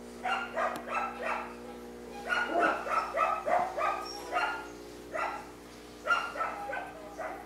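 A dog barking in quick runs of short, high barks, several runs of three or four, over a steady low hum.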